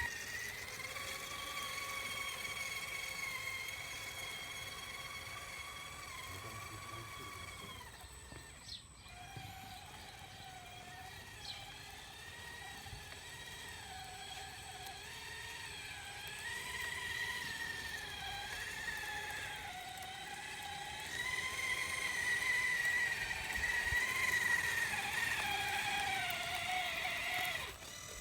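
Electric drive motors and gearing of a radio-controlled model construction machine whining steadily, the pitch wavering up and down as it works. The sound breaks off briefly about a third of the way in and grows louder in the last quarter.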